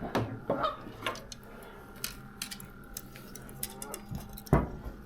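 Fishing tackle being handled while a second rod is set up: scattered light clicks and knocks, with one heavier thump about four and a half seconds in.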